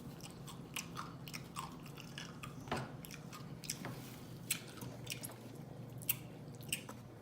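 A person biting and chewing crunchy hot and spicy pickle slices, with a dozen or so sharp, irregular crunches.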